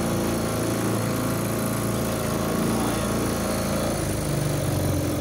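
Small outboard motor running steadily, pushing an open boat along the creek; about four seconds in its pitch drops.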